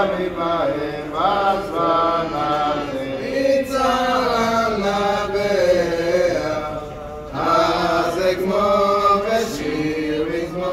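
Voices chanting a Hanukkah song in a slow melody of long held notes that slide between pitches.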